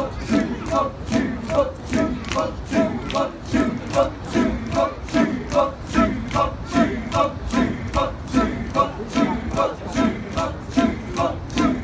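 Kecak chorus: a large group of men chanting the interlocking "cak" syllables unaccompanied, in a fast, even rhythm.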